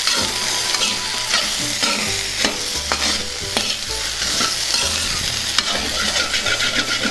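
Metal spatula stirring and scraping taro (colocasia) pieces frying in oil in a hammered metal kadai: a steady sizzle with irregular clinks of the spatula against the pan. Near the end the scraping speeds up into a quick run of ticks.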